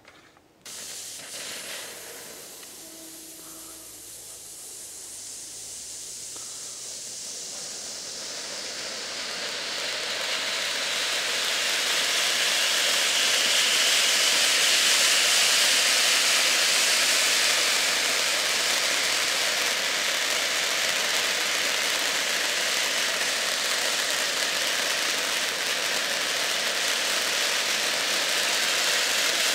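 Ground fountain firework spraying sparks with a steady high hiss. It starts suddenly, grows louder over the first ten or so seconds, then holds steady.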